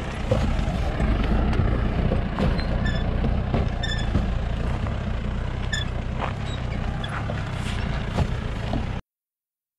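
Mahindra Bolero 4x4 crawling up a rocky trail: its engine runs steadily, with stones clicking and crunching under the tyres and a few short high chirps. The sound cuts off abruptly near the end.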